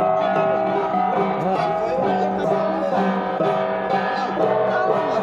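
Gangsa, flat bronze gongs, played as wedding music: ringing metallic tones repeating steadily, with voices underneath.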